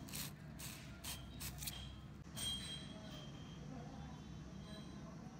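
Small clicks and knocks of an electric drill's armature being handled and fitted into its plastic motor housing against the carbon brush holders. A louder click about two and a half seconds in has a short metallic ring.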